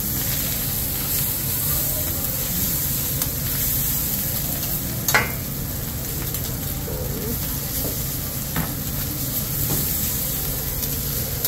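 Fried rice sizzling on a hibachi steel griddle as metal spatulas scrape and push it around. A sharp clack stands out about halfway through, and a lighter one near the end.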